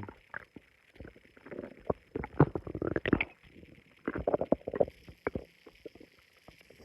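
Stomach growling in irregular bursts of short gurgles and crackles, loudest about two and a half to three seconds in and again around four seconds in.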